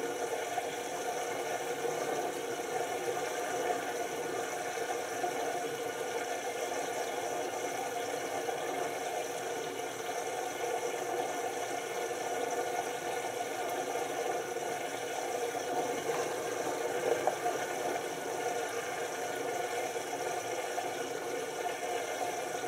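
LG TurboWash 6 Motion front-loading washing machine in its first rinse, its drum turning over the wet laundry with a steady whir.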